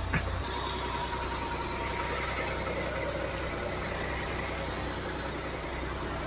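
Ford EcoSport's 1.5 Dragon three-cylinder petrol engine idling steadily, running smoothly. Two short rising high chirps sound about a second in and again near the end.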